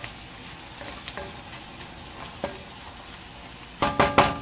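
Stir-fried bitter gourd with bacon sizzling in a metal pan: a steady hiss with a few light clicks. Near the end come several loud metal knocks on the pan that ring briefly.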